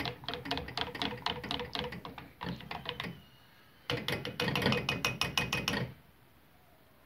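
Wire balloon whisk rattling and clicking against the sides of a stainless-steel saucepan while whisking chocolate sauce, in rapid strokes. It stops about three seconds in, resumes a second later for about two seconds, then stops.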